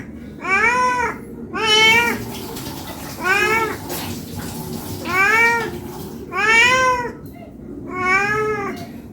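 Domestic cat meowing repeatedly, six drawn-out meows each rising and then falling in pitch, about one every second and a half: a hungry cat begging for food.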